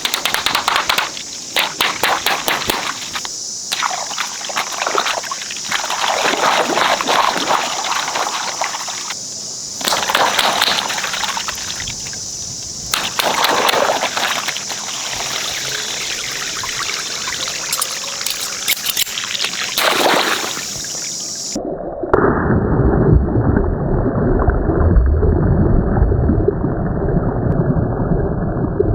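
Water running and splashing, with many sharp clicks and surges. About three-quarters of the way through it cuts abruptly to a muffled, low rumbling sound.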